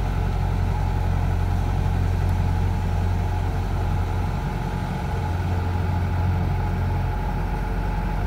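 Diesel engines of two rice combine harvesters running steadily under load: a Kubota combine (the 105) straining to tow a 93 combine that is bogged down in paddy mud and won't come free.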